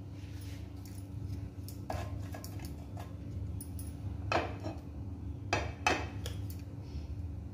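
Cumin seeds frying in hot oil in a kadhai, giving a scattering of sharp crackling pops as they splutter: the sign that the tempering is ready. A steady low hum runs underneath.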